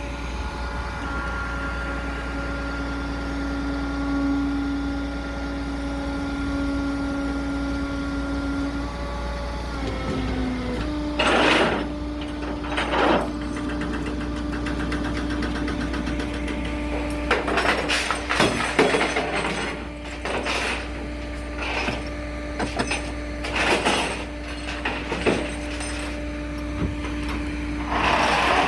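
A vehicle engine idling with a steady hum whose pitch dips and then settles slightly higher about ten seconds in. From then on, a series of sharp knocks and bangs sound at uneven intervals over the running engine.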